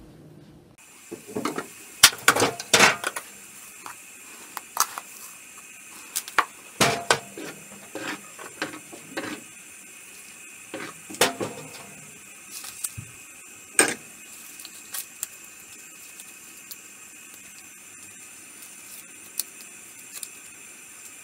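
Metal spoon clinking and scraping against a steel pot of boiling water as salt, bay leaves and black peppercorns are tipped in and stirred, over a steady hiss. The sharp clicks come in clusters, thickest in the first few seconds, then thin out.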